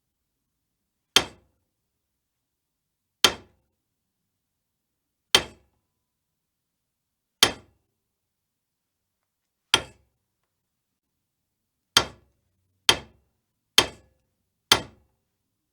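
Hammer striking metal: single sharp blows, each with a short ring. The first six come about two seconds apart, then three come quicker, about a second apart, near the end.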